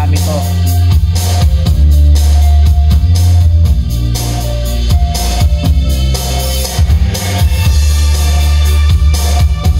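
A song with drums and a heavy bass line, played back from CD on a Sony CDP-591 compact disc player through a hi-fi sound system.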